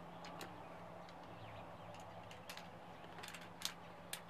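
Scattered light metallic clicks from an Umarex Colt Peacemaker CO2 pellet revolver as its cylinder is handled, the loudest about three and a half seconds in, over a faint steady hum.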